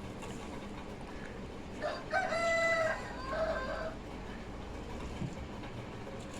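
Rooster crowing once, about two seconds in, a pitched call lasting about a second and a half over steady background noise.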